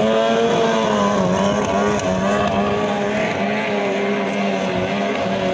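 15-horsepower outboard engine on a racing longboat running at high revs, its pitch steady with slight wavers and small dips.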